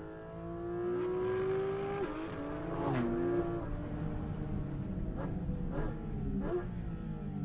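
Porsche Cayman GT4 RS's 4.0-litre naturally aspirated flat-six revving up through a gear, with a quick gear change about two seconds in and another dip around three seconds. Near the end come three short throttle blips, typical of downshifting.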